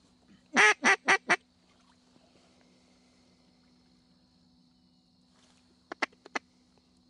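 Four loud duck quacks in quick succession; about six seconds in, a quick run of four short, sharper notes.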